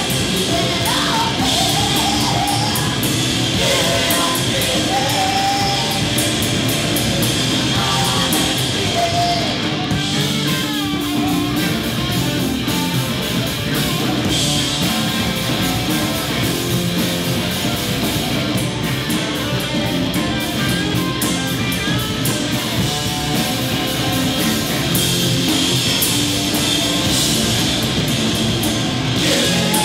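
A live rock band playing loudly, with electric bass and electric guitar over drums. A voice sings in the first several seconds and again near the end.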